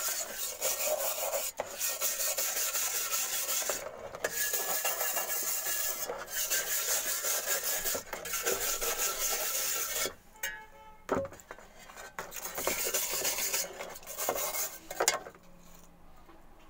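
Wire brush scrubbing a wet, rusty steel shovel blade in quick back-and-forth scraping strokes. It breaks off briefly twice. About ten seconds in it turns to slower, separate strokes, which die down near the end.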